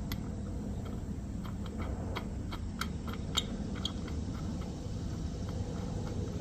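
Light metallic clicks and taps, several in quick succession in the first half, as a steel wedge fastener and bolt are handled and fitted against a Dayton spider wheel hub, over a steady low rumble.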